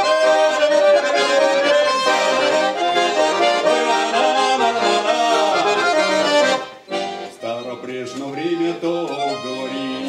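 Russian garmon (button accordion) playing an instrumental folk passage between sung verses, melody over chords. About seven seconds in the playing drops to a softer passage.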